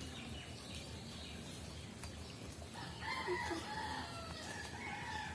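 A rooster crowing once, starting about three seconds in and drawn out for about two seconds.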